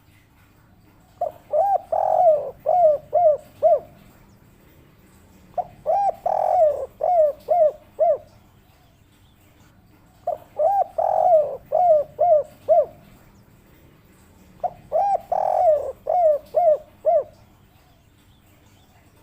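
Spotted dove (tekukur) cooing in the 'kuk 3' call style: four repeated phrases, each a couple of quick coos, a longer slurred coo, then a run of short coos, spaced a few seconds apart.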